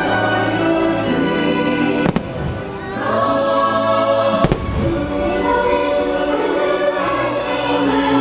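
Fireworks display: two shells burst with sharp bangs, about two seconds and four and a half seconds in, over loud orchestral show music with a choir singing.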